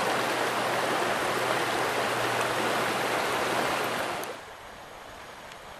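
Rushing water of a shallow creek riffle, a steady wash that falls much quieter about four seconds in.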